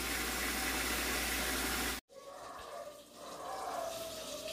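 Fish frying in oil on an electric grill plate, a steady sizzling hiss that cuts off abruptly about two seconds in. After that only a faint background sound remains.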